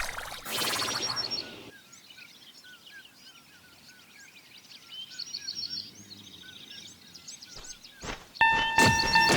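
Quiet bird chirping, short repeated calls about twice a second, after a brief noisy rush at the start. About eight seconds in, a loud steady pitched tone cuts in suddenly.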